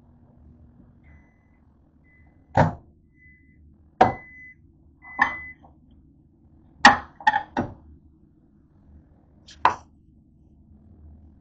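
Microwave oven finishing its cycle: its low hum cuts off, it gives several short high beeps, and then the door and a plate being taken out make a series of sharp clunks and knocks.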